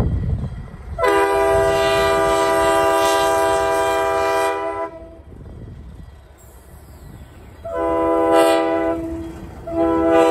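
Mohawk, Adirondack & Northern diesel locomotive's horn blowing as it approaches: a long blast of about four seconds, a shorter blast, then another long one beginning near the end, over the low rumble of the locomotive and train.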